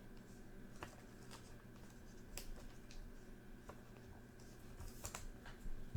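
Faint handling of trading cards: a few soft, scattered ticks and rustles as cards are slid and sorted by hand, over a low steady hum.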